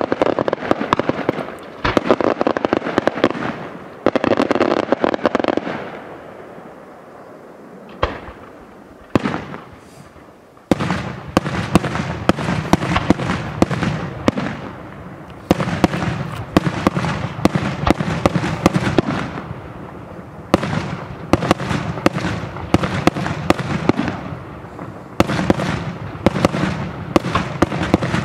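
Senatore Fireworks daytime fireworks display: aerial shells bursting in rapid volleys of sharp bangs and crackles. There is a quieter lull about six to eleven seconds in, then a near-continuous crackling barrage.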